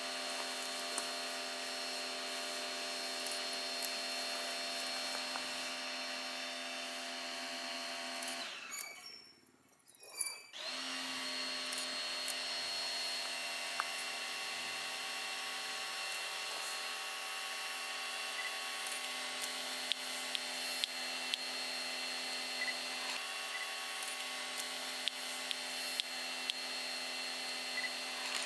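Steady mechanical hum with several fixed tones, from a small motor or fan, with faint short clicks scattered through it. It cuts out for about two seconds around nine seconds in.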